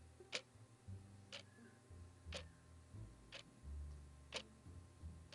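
A clock ticking faintly and evenly, about one tick a second.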